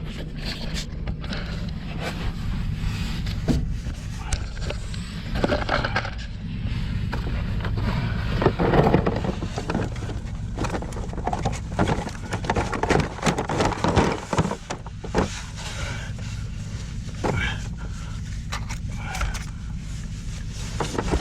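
Electric drain-cleaning machine running steadily, with irregular scraping and rattling as the snake cable and cutter work against rust inside the drain line.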